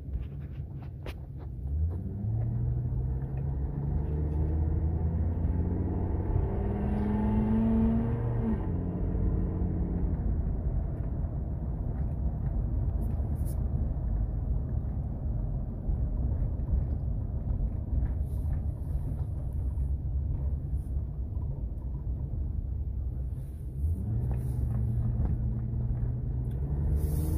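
Ford F-350's 6.8-litre V10 with its catalytic converters removed, heard from inside the closed cab while driving. The exhaust note climbs in pitch as the truck accelerates and drops sharply about eight seconds in. It then holds a steady low drone and climbs again near the end as the truck accelerates once more.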